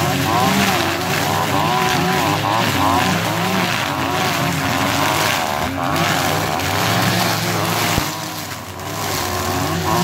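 Two backpack brush cutters, a Stihl FR 480 and one with a Kawasaki TJ53 two-stroke engine, running together with thick nylon line as they cut through dense thorny brush and vines. Their engine pitches rise and fall against each other. A sharp tick comes about eight seconds in, and the sound dips briefly just after it.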